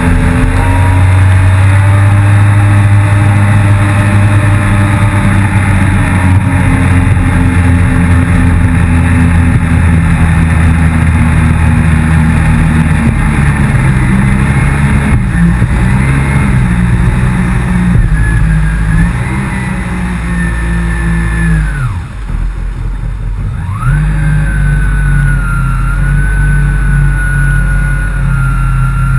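Yamaha FX160 HO jet ski engine running hard, its pitch rising and falling with the throttle. About three-quarters of the way through it drops away sharply for a couple of seconds, then comes back to a steady high run with a whine on top.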